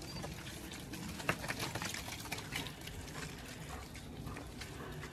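Footsteps squelching through deep, wet mud: a string of irregular soft, wet sucking clicks.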